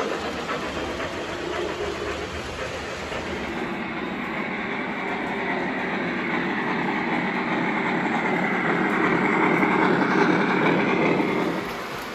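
O gauge model trains running on three-rail track: a steady rolling and clacking of wheels and motors that grows slowly louder, changing character about three and a half seconds in and again near the end as the clips change.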